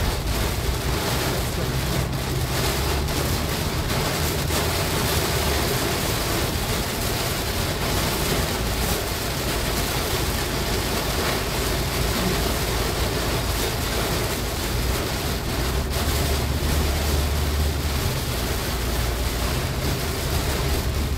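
Heavy rain beating on a car's roof and windshield, heard from inside the cabin as a steady hiss, over a constant low rumble of the engine and tyres on the wet road.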